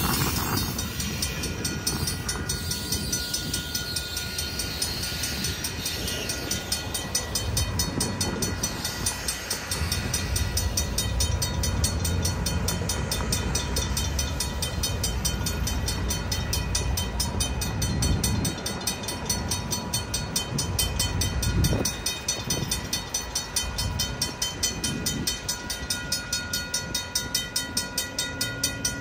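Mechanical railroad crossing bell ringing with fast, even strikes of its hammer on the gong, a ringing tone held between strikes. Low rumbles come and go underneath as a train clears the crossing and road vehicles drive over the rails.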